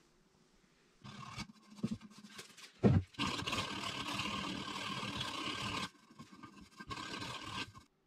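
Wood being hand-sanded with a block along the shaped edge of a spalted maple drawer front: irregular scraping strokes, a sharp knock about three seconds in, one unbroken stroke of nearly three seconds, then a few shorter strokes.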